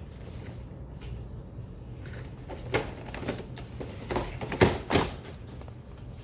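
Small clicks, knocks and rattles of jewelry findings and their containers being handled and rummaged through, with two sharper clicks about three-quarters of the way in, over a low steady hum.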